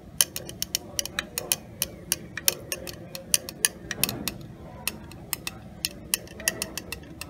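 Glass stirring rod clinking against the inside of a glass Erlenmeyer flask as a liquid is stirred, with irregular sharp clicks several times a second.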